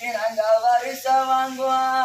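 A man's voice singing an oppari, a Tamil funeral lament, in long held notes that slide between pitches.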